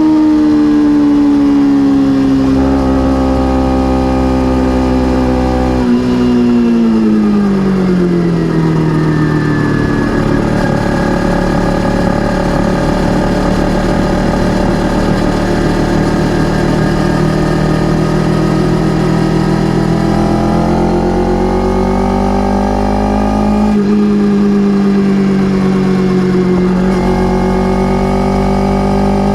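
Kawasaki Ninja 300's parallel-twin engine running under way, with its stock exhaust and wind noise. The engine pitch sinks gradually, drops further about seven seconds in, holds low for a long stretch, climbs again near the end and dips briefly once.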